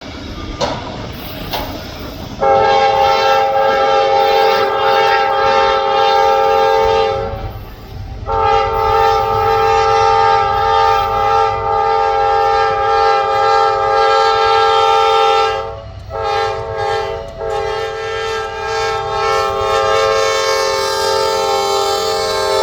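Ferromex GE AC44C6M locomotive's multi-chime air horn sounding a chord in long blasts. The first lasts about five seconds, starting a couple of seconds in; the second runs about seven seconds; the third is short, and the last is still sounding at the end.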